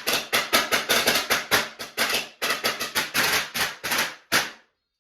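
A string of small firecrackers going off in a rapid, irregular chain of sharp bangs, about five a second. The chain stops abruptly about four and a half seconds in.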